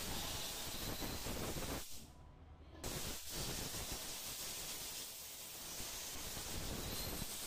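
Steady, even hiss of background noise that drops out briefly about two seconds in.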